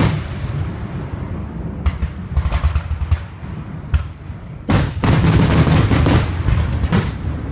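Fireworks finale: aerial shells bursting in quick succession, single sharp reports early on giving way to a dense barrage of crackling bangs from about 4.7 to 6.2 s, over a continuous low rumble of distant booms.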